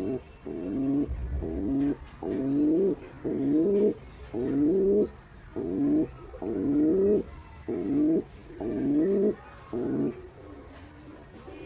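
Male domestic pigeon cooing to a female in courtship: a steady run of low coos, about one a second, each rising in pitch.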